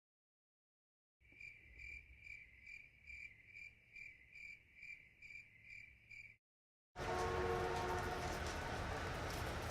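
Faint cricket-like chirping: a steady series of high chirps, about two and a half a second, that starts and stops abruptly. Near the end it gives way to a steady background hiss.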